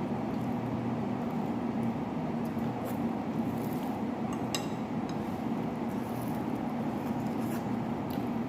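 Tableware sounds while eating: a few faint clicks and one sharp clink with a short ring about four and a half seconds in, over a steady low hum.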